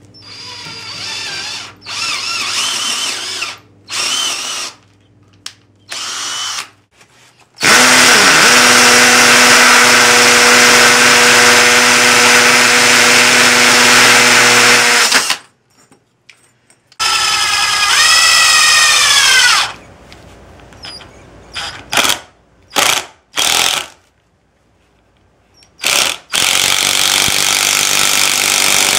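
Cordless power tools at work one after another. First a drill with a 3/8 inch bit runs in several short bursts. Then a hammer drill bores a 3/8 inch hole into a brick in one steady run of about eight seconds, and after more short bursts an impact driver drives a 5 inch screw into wood near the end.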